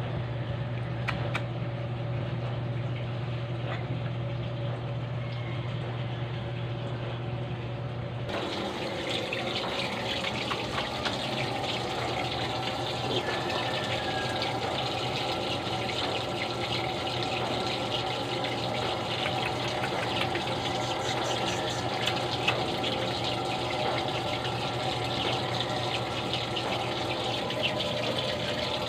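Water running steadily from a tap, a rushing hiss that starts abruptly about eight seconds in. Before it there is only a steady low hum.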